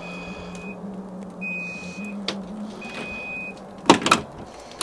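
Electronic chime beeping three times, each beep a steady high tone of about two-thirds of a second, evenly spaced, over a low steady hum. A couple of sharp clicks follow near the end.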